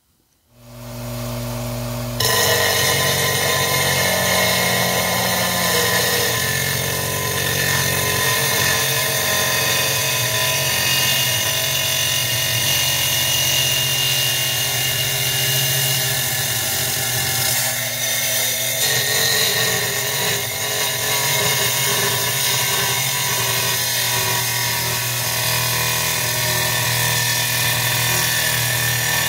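Wet glass saw cutting a sheet of stained glass: the motor starts about half a second in, and the blade bites into the glass about two seconds in, a steady hum under a grinding hiss.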